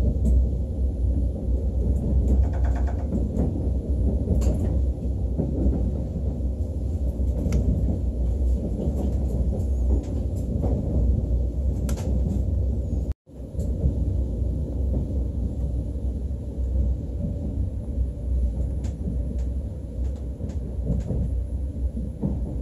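Steady low rumble of a KTX train heard from inside the passenger cabin, with scattered faint clicks and knocks of the carriage running over the track. The sound cuts out for an instant about thirteen seconds in.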